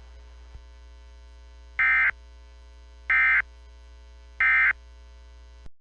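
Emergency Alert System End of Message (EOM) data tones: three identical short digital bursts about a second and a half apart, signalling the end of the alert. A steady mains hum runs underneath, and the audio cuts off suddenly near the end.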